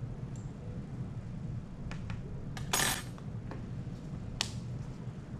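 Metal scoopula clinking against a glass test tube and the lab bench as table salt is transferred: a few light taps, a brief louder scrape about halfway through, and a sharp click near the end, over a low steady hum.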